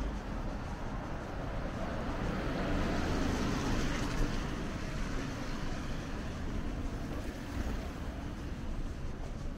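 A passing vehicle: a steady rush of noise that swells to a peak about three to four seconds in and then slowly fades.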